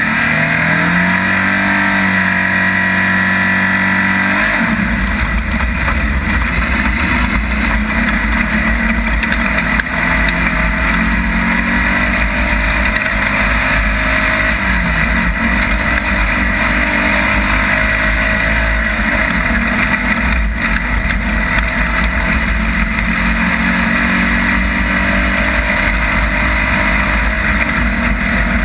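Off-road race vehicle's engine accelerating, its pitch climbing over the first few seconds, then running hard and steady under a heavy low rumble.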